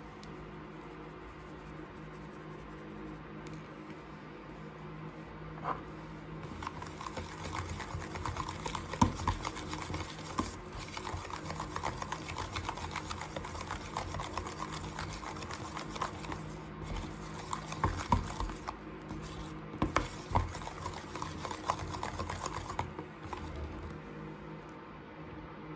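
Blue plastic spoon stirring and lifting thick shampoo-and-baking-soda slime in a plastic tub: a dense run of small sticky clicks and squelches with a few louder knocks, starting about five seconds in and dying away near the end.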